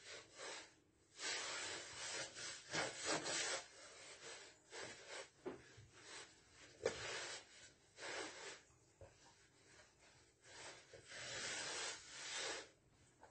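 Hands mixing and kneading flour and water into pizza dough in a wooden bowl: irregular dry scraping and rubbing swishes against the wood. There is a single sharp knock about seven seconds in.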